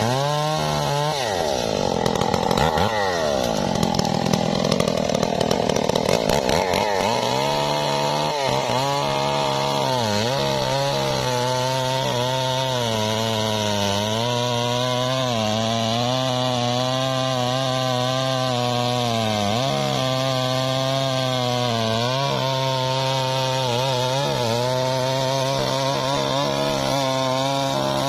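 Stihl MS 381 two-stroke chainsaw at full throttle, cutting deep into a thick durian trunk. Over the first few seconds the engine pitch swings down and up, and after that it holds steady with repeated brief sags as the chain bogs under load in the cut.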